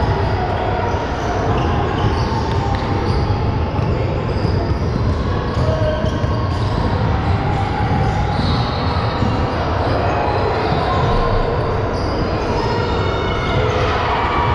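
Basketball being dribbled on a gym floor, with short squeaks and a steady murmur of voices in the hall.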